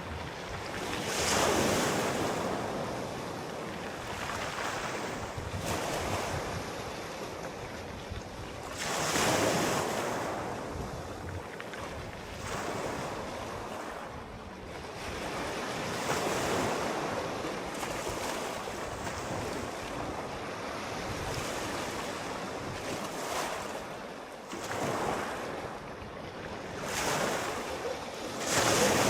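Sea waves breaking and washing onto the shore, in swells that rise and fall every several seconds, the biggest about a second in, around nine seconds in and near the end.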